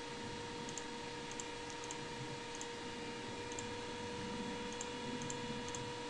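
Steady hiss and hum of the recording microphone, with a few faint, scattered clicks of a computer mouse.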